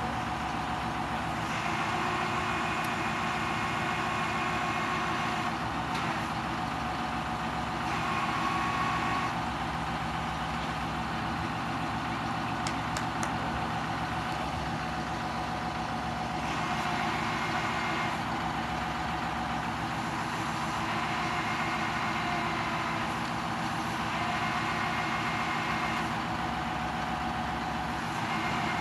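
Ford crane truck's engine running steadily to drive its National boom crane, with a higher whine that comes in and drops away several times as the crane controls are worked.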